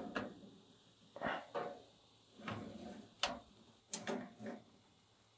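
Metal oven tray being slid out along the oven's shelf runners: a few short, quiet scrapes and clicks, with one sharper click a little past three seconds.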